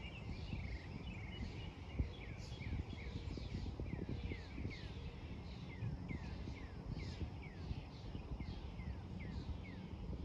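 Birds chirping in a steady run of short falling chirps, two or three a second, over a low outdoor rumble.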